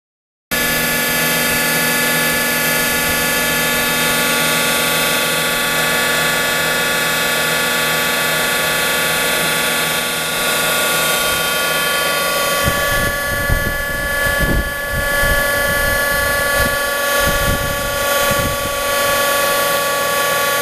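Shop-built 5 gpm hydraulic pump, belt-driven by an electric motor, running steadily with a constant hum and whine made of several fixed tones while it pre-lubricates the bearings of a diesel locomotive's engine. Irregular low rumbles come and go in the second half.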